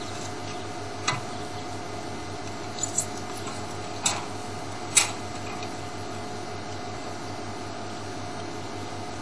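Steady electrical hum and hiss on a faulty field audio feed, with a few sharp clicks and crackles in the first five seconds as its connections are handled.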